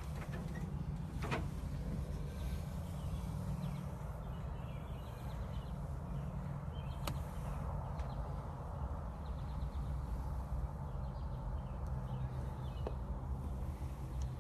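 Low, steady rumble on the phone's microphone with a few faint clicks and taps, as the phone is held and shifted against a door's glass pane.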